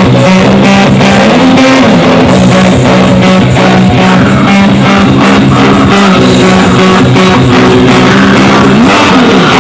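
Death metal band playing live: distorted electric guitars and bass holding a low riff over fast, even drumming. A held note is bent up and back down twice, about a second and a half in and again near the end.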